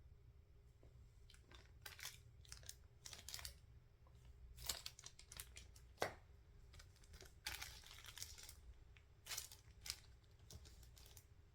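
Faint rustling and crinkling of packaging as small nail-kit items are handled, in scattered short bursts, with one sharp click about six seconds in.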